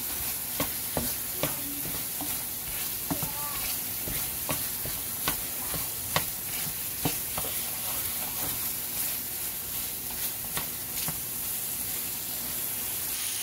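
Shrimp frying in oil in a nonstick pan on high heat, stirred with a wooden spatula: a steady sizzle with scattered sharp pops and clicks.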